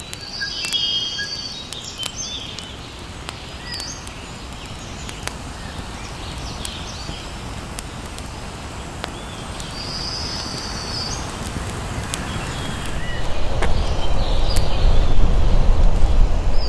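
Birds calling with short chirps and trills over the crackle and sharp pops of an upright split log burning as a Swedish torch. About three-quarters of the way through, a louder low rush of wind comes in.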